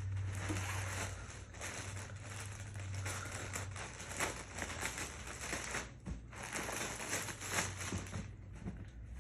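Rustling and crinkling of packaging and folded clothing being handled and pulled out during unpacking, a dense run of short crackly strokes over a steady low hum.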